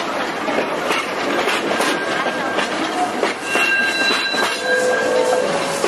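Wooden railway carriages rolling slowly past on steel rails, the wheels clacking over rail joints at a regular beat. Thin, steady wheel squeals come in over the second half.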